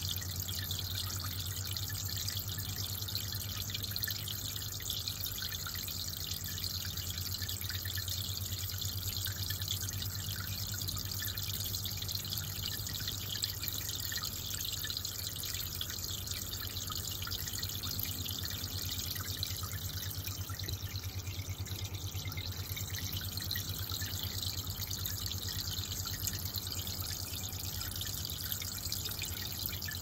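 Aquarium water trickling and dripping steadily, with a low steady hum underneath.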